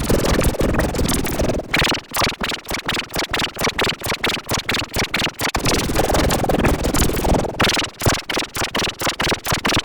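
Heavily distorted, stutter-edited remix audio of a children's song, chopped into rapid fragments several times a second with no clear words.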